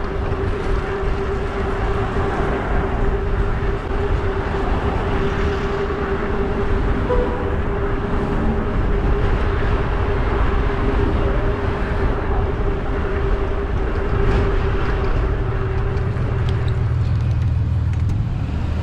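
Wind and road rumble on the microphone of a moving e-bike, with a steady whine running beneath it that cuts out near the end.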